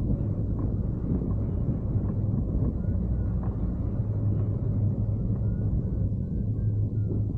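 Steady low wind rush and buffeting on the microphone of a hang glider in flight, with a few faint short high tones.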